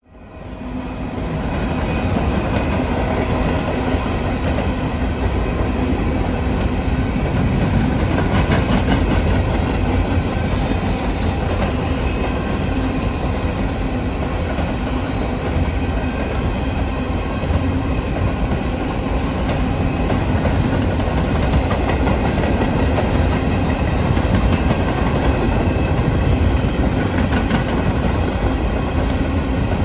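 Freight train rolling past, the wheels clicking and clattering over the rails in a loud, steady rumble that swells up in the first second or two.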